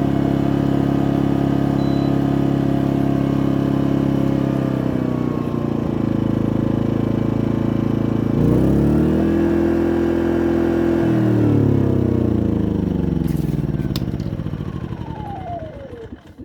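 Powerhorse 2300i inverter generator engine running steadily. About eight seconds in it speeds up, holds briefly, then settles back. It is then shut off, with a couple of clicks, and winds down with falling pitch until it stops near the end.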